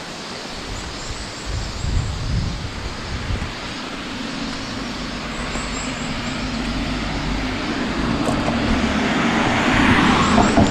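A motor vehicle's engine grows steadily louder through the second half over a steady rushing background, as a car approaches along a road.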